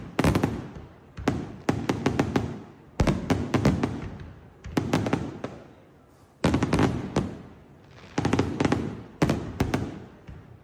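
Fireworks display: aerial shells going off in quick clusters of sharp bangs, a new volley every second or two, each one fading out in a low rolling rumble.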